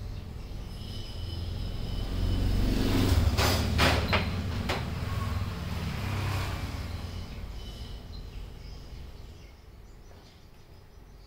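A motor vehicle passing by: a low rumble that builds over the first few seconds, peaks about three to four seconds in with a few sharp clicks, then fades away.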